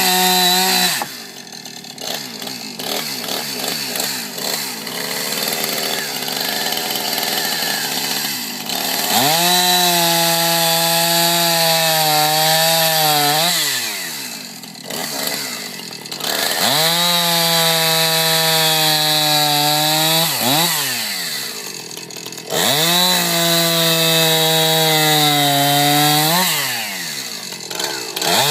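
Two-stroke chainsaw cutting logs, the engine revved high and steady in three long stretches, each ending with the revs dropping away as the throttle is let off. Between them it runs lower and rougher.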